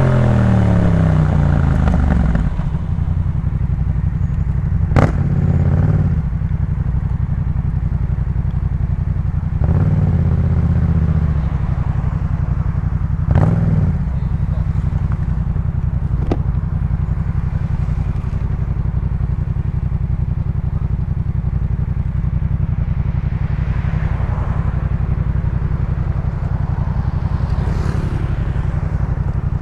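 2018 Yamaha MT-07's parallel-twin engine through a Jeskap K4 full aftermarket exhaust. The revs fall over the first couple of seconds, then the engine runs steadily at a low, idle-like note. Three short throttle blips and a few sharp cracks come in the first half.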